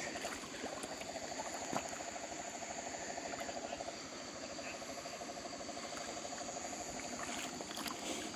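Night chorus: a frog gives long, rapid pulsed trills, with a steady high-pitched insect drone behind it.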